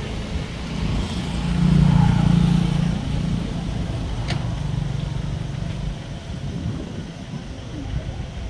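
Low drone of a motor vehicle's engine, growing louder about two seconds in, then steadier and fading toward the end, with one sharp click about midway.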